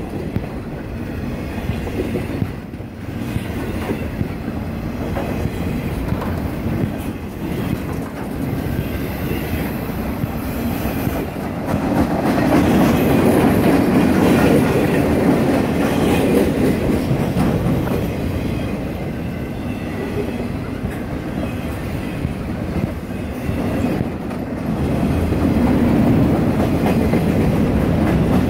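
Boxcars of a freight train rolling past close by: a steady rumble of steel wheels on rail with repeated clacking, swelling louder twice as the cars go by.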